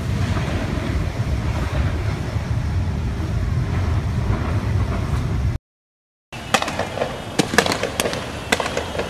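Steady, dense low rumble of outdoor street noise. It cuts off suddenly to a moment of silence, then gives way to a string of sharp, distant pops and bangs, several a second at times.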